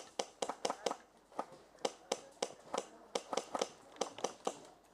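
Airsoft guns firing a long string of single shots, sharp cracks coming several a second at irregular intervals.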